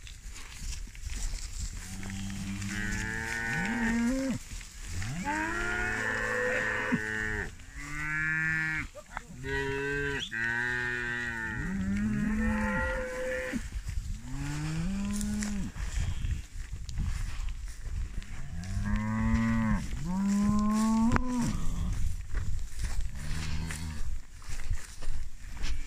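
A herd of Tuli cattle mooing: many long calls one after another, often overlapping and several rising in pitch, with a lull about two thirds of the way through before more calls near the end.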